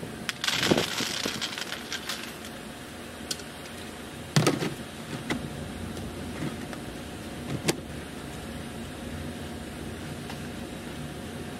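Dry cat kibble rattling as it is scooped from a plastic bin and poured out, with a few sharp knocks, the loudest about four seconds in, over a steady low background rumble.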